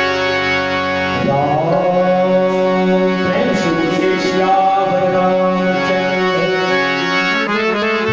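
Harmonium playing sustained reed chords at the opening of a Hindi devotional bhajan. From about a second in, a man's voice sings a drawn-out, wavering wordless line over it.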